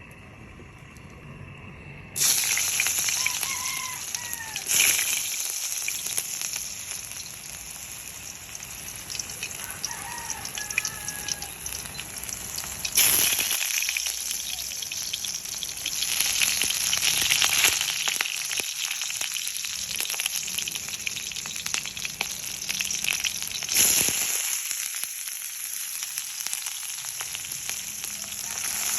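Food sizzling and crackling as it fries, starting suddenly about two seconds in and flaring up again several times. A rooster crows faintly twice in the first half.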